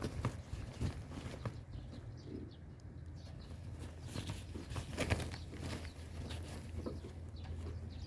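Cats' paws scrabbling and knocking on a wooden tunnel: irregular light knocks and scratches, loudest near the start and about five seconds in, over a steady low hum.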